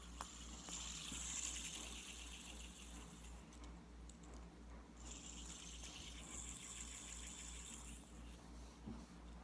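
Green metal fidget spinner whirring on its bearing, spun twice: a faint high whirr for about three seconds that stops, then another for about three seconds.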